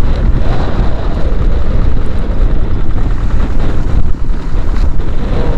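Small wooden fishing boat's motor running steadily under way through rough sea, with wind buffeting the microphone.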